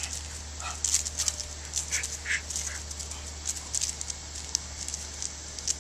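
Leashed dogs giving a few short whines or yips during a play greeting, with scattered brief scuffs and clicks.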